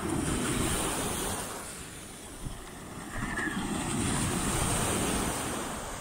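Mediterranean Sea waves breaking on a sandy beach, surf surging in twice and washing back, with some wind on the microphone.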